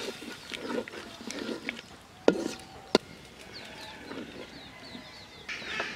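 Wooden spoon stirring a thick curry in a metal cooking pot, knocking sharply against the pot twice, a little over two and about three seconds in, with birds chirping in the background.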